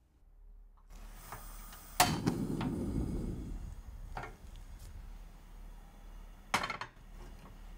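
Portable gas stove being lit: a loud sharp click from the igniter about two seconds in, then the burner catching with a short rush of flame that dies down over a second or so. A lighter click follows, and there is a second sharp knock near the end.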